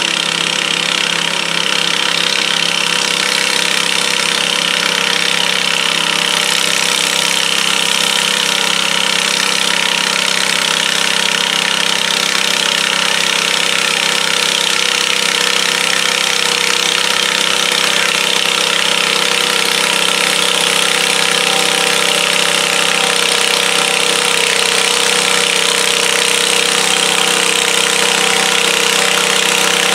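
Garden tractor engines running steadily between pulls, a loud, even engine note that does not rev up or die away.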